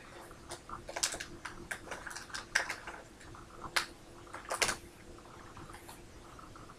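A small packaging wrapper crinkling and crackling as it is torn open and handled by hand, in irregular clicks with a few sharper snaps.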